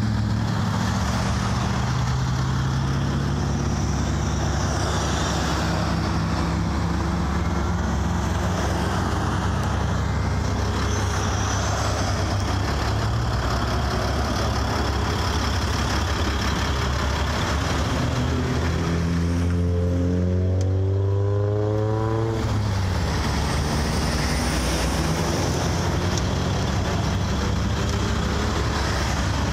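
Highway traffic: a steady line of cars and pickups passing close by one after another, with tyre noise on the wet road over a steady low engine hum. About 20 seconds in, one passing vehicle's engine rises in pitch as it accelerates.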